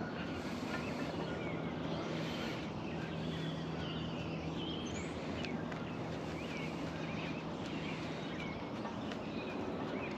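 Birds chirping in short, scattered calls over a steady low hum and outdoor background noise.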